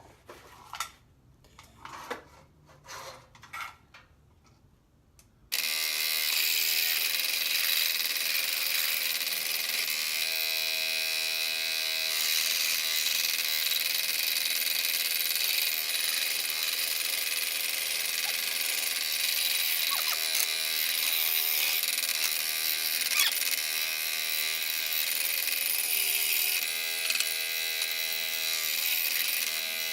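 A few faint handling clicks, then about five and a half seconds in an electric saw starts suddenly and runs steadily, cutting a purpleheart blank. Its pitch rises and falls a little as the blade bites into the wood. The blade is a poor one, loose and wandering off the line.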